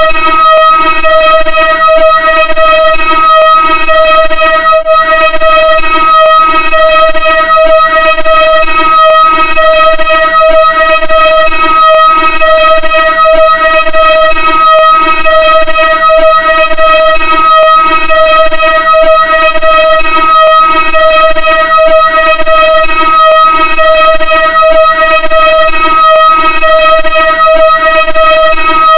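Synthesized vocoder sound effect: a loud, steady electronic drone held on one pitch with many buzzing overtones, a lower layer pulsing in a regular rhythm beneath it.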